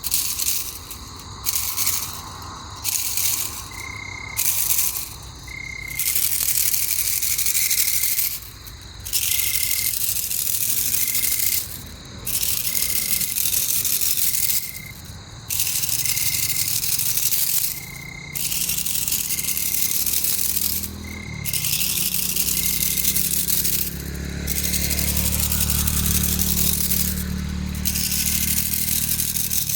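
Night insect chorus, a loud high hiss that swells on and off every few seconds, with a short chirp repeating in the gaps. A low hum comes in near the end.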